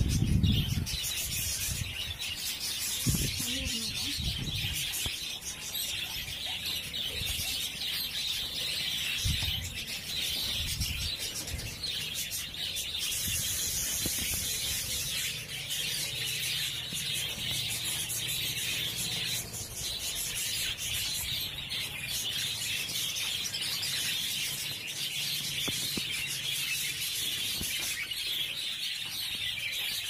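A flock of budgerigars chattering and chirping continuously, a dense high twittering that never stops, with a couple of low bumps near the start.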